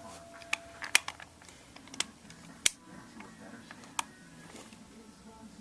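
About six sharp plastic clicks and snaps, spread out over several seconds, as the parts of a spring-powered airsoft Colt 1911A1 pistol are handled and fitted back together.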